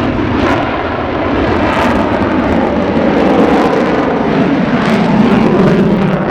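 Fixed-wing aircraft flying by, its engine noise a loud, steady roar.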